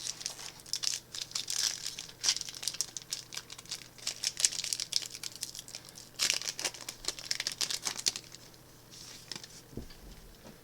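Plastic wrapper of a Magic: The Gathering Mystery Booster pack being torn open and crinkled: dense crackling for about eight seconds, then dying down to a few soft rustles.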